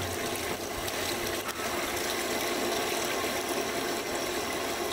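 Barrel washer spraying water up inside an upturned oak wine barrel, a steady rush of water with the rinse water draining out onto the floor, still carrying wine residue.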